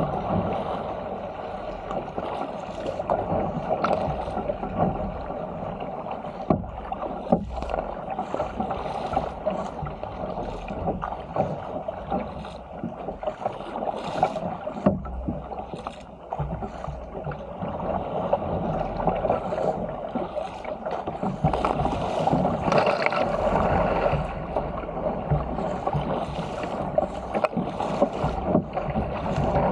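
Sea water rushing and splashing along the hull of a Stealth 475 fishing ski being paddled downwind through chop, with many short sharp splashes and knocks.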